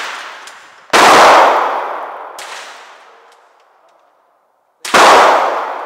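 Two shots from a large-calibre revolver, about a second in and near the end, each followed by a long ringing reverberation from the enclosed range. A fainter sharp crack comes between them.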